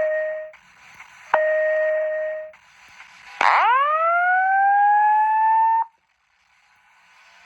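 Simplex 4100 fire alarm panel sounding its evacuation tone: two short steady beeps, then a long rising whoop that climbs and levels off before cutting out.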